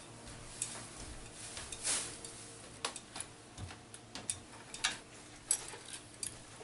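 Irregular light clicks and small rattles of a ceiling fan light fixture being hung on thin wire hooks under the fan housing, with one brief louder scrape about two seconds in.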